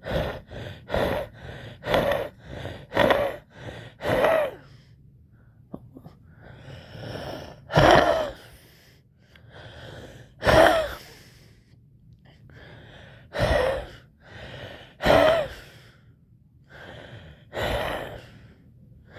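A person wheezing on purpose, forcing breaths out and in. The breaths come fast at first, about two a second for four or five seconds, then slow to one loud breath every two to three seconds, each with a softer one beside it.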